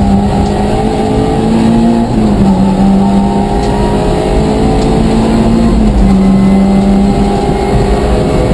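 Vauxhall Astra Mk2 1400cc four-cylinder rally car engine heard loud from inside the cabin, pulling hard down a straight with its pitch climbing steadily. It drops sharply twice, about two and six seconds in, as it changes gear up.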